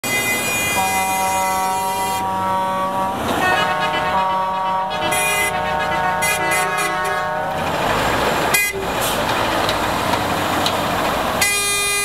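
Several truck air horns blaring together at different pitches for about seven seconds, then a heavy diesel engine running, with another horn blast near the end.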